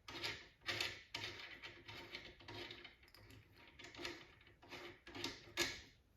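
Old muzzle device being unscrewed by hand from an AK-47's threaded barrel: a run of short, irregular metal scrapes and clicks that stops shortly before the end.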